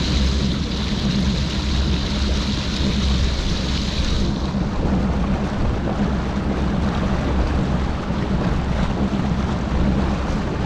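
Bass boat's outboard motor running steadily at slow cruising speed, with water washing along the hull. A higher hiss drops away about four seconds in.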